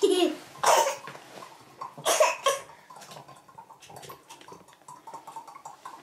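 A young child's short, loud vocal outbursts, three or four within the first two and a half seconds, then quieter.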